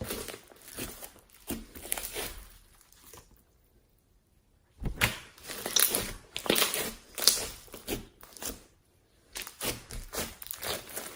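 Slime being squeezed and pulled by hand, giving crinkly, crackling, tearing sounds in irregular bursts, with a pause of about a second and a half around four seconds in.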